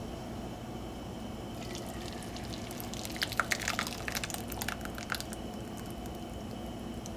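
Thick blended salsa verde poured into a skillet, crackling and spattering in a dense run of sharp pops for about two and a half seconds, starting about three seconds in.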